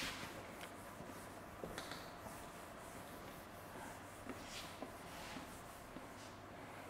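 Faint swishes of a cloth duster wiping marker off a whiteboard, in short strokes at uneven intervals over a low room hum.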